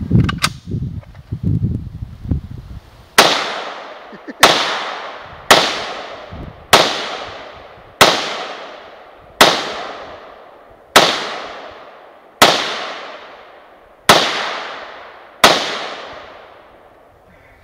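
An SKS semi-automatic rifle in 7.62×39 fired ten times at a steady pace, about one shot every second and a half, each crack trailing off in a long echo: its full ten-round magazine emptied. A few small clicks near the start as the rifle is readied.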